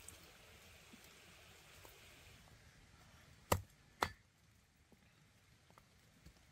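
Two sharp knocks about half a second apart, over a faint hiss that fades out before them.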